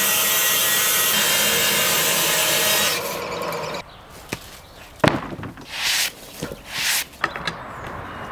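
Sawmill blade cutting through solid oak: a loud, steady sawing noise for about three seconds that then dies away. It is followed by a few sharp knocks and short scraping sounds.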